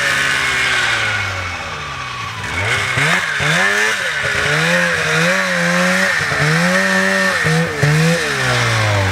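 Snowmobile engine revving in repeated surges: it winds down over the first couple of seconds, then climbs and drops about five times as the throttle is worked, and falls away near the end.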